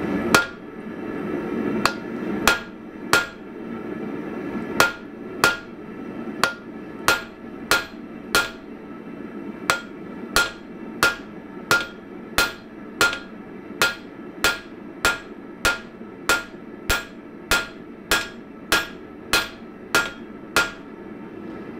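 Hand hammer blows on a red-hot bar of H13 steel stood on end on the anvil, upsetting it: sharp metal-on-metal strikes, each with a short ring, uneven at first and then steady at about one and a half blows a second. H13 is a hot-work steel that hardly moves under the hammer.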